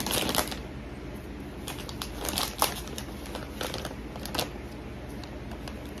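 Snack bag of popcorn crinkling in the hands as it is cut open with scissors and pulled apart, in a few irregular bursts of rustling.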